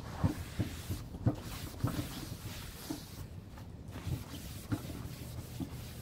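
Wad of paper towel scrubbed over a wooden tabletop, with irregular soft knocks and thumps as the hand presses and rubs, thickest in the first two seconds and again later. Dark stain is being wiped over painted lettering to age it.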